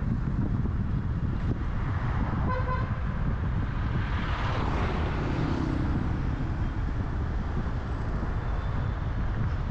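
Road traffic heard from a moving car, under a steady heavy rumble of wind and road noise. A vehicle horn toots once, briefly, about two and a half seconds in, and a louder rush of passing traffic swells and fades near the middle.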